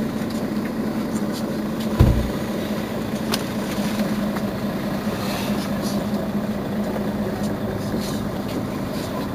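Mercedes-Benz Citaro Facelift city bus engine idling steadily with a low hum. A single heavy thump comes about two seconds in.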